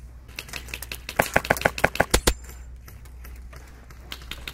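Airsoft gun firing a quick string of about ten sharp shots in roughly a second, followed by a few scattered single shots near the end.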